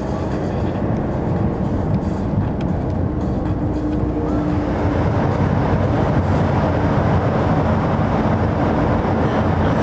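Car engine and tyre noise heard from inside the cabin while driving, with a steady hum under it. The noise grows fuller and a little louder about halfway through, as the car runs into a rock tunnel.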